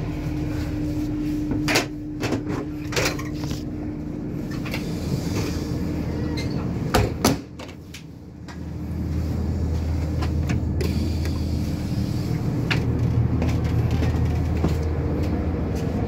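Interior noise of a moving Class 170 Turbostar diesel multiple unit: a steady running hum with scattered knocks and clunks, and two sharp bangs about seven seconds in around the toilet door. After a moment's dip, the low rumble of the train underway becomes louder.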